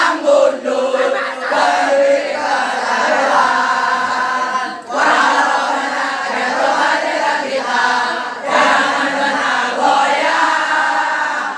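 A large group of boys chanting a yel-yel in unison, the cheer sung in rhythmic phrases with short breaks about five seconds in and again just past eight seconds.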